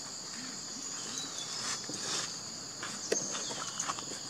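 Steady high-pitched insect chorus, with a few faint clicks about three seconds in.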